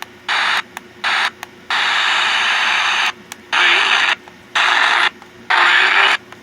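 Eton AM/FM/NOAA clock radio giving out static hiss as it is tuned between stations, the hiss cutting in and out abruptly several times.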